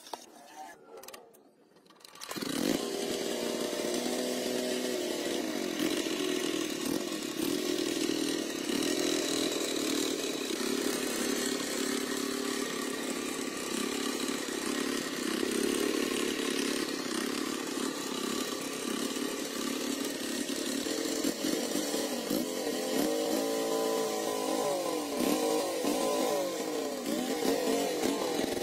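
Restored single-cylinder diesel engine running steadily, coming in abruptly about two seconds in; its pitch wavers more over the last several seconds.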